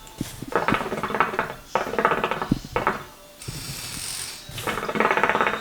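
Hookah water bubbling in a rapid, rattling gurgle as someone draws hard on the hose, in three bursts, with a breathy hiss between the second and third.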